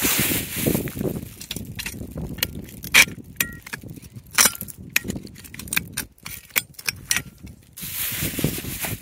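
Digging in dry, stony ground to free a rock: a run of sharp clicks, knocks and scrapes as a hand tool strikes gravel and rock, some strikes briefly ringing. Rustling before and after the strikes.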